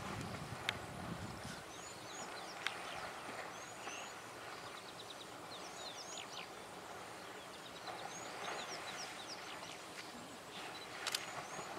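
Two African bull elephants splashing and sloshing about in a dam, the water noise heaviest at the start and in bouts near the end, with three sharp knocks. Birds chirp over it, a quick rising-and-falling note repeated many times.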